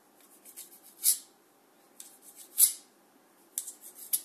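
Knife blade cutting through stiff dough and scraping on a stone countertop in short, sharp strokes: one about a second in, a louder one past the middle, and a quick cluster near the end.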